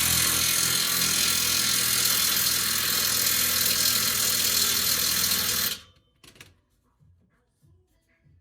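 A power tool running steadily at full speed, then switched off, stopping suddenly about six seconds in; faint short taps follow.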